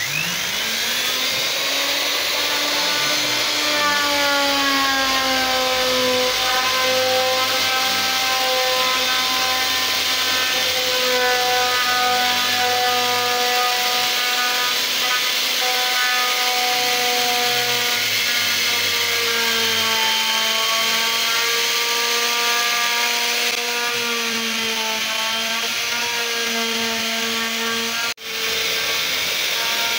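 Electric plunge router spinning up as it is switched on, then running at high speed while its bit cuts into a wooden board; the whine dips and wavers in pitch as the cutter takes load. The sound cuts out for a moment near the end.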